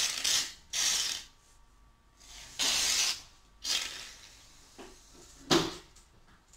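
An aerosol can of shaving foam hissing in several short spurts as foam is sprayed out, the last and loudest spurt near the end.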